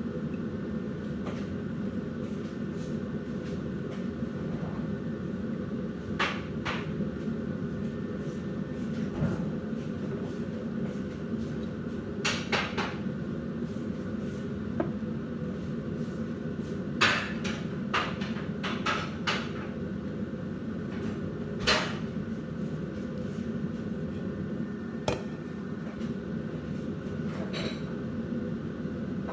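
A metal spatula knocking and scraping against a frying pan while eggplant is stirred, in irregular clinks a few seconds apart, over a steady low hum.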